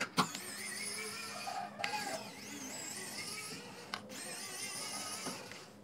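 Electric precision screwdriver running to back out small screws from a plastic speaker housing: a high motor whine that wavers in pitch under load, in three spells broken by short pauses and clicks.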